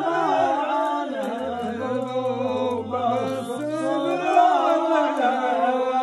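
A man chanting a line of poetry in a slow, drawn-out melodic voice, holding and bending long notes.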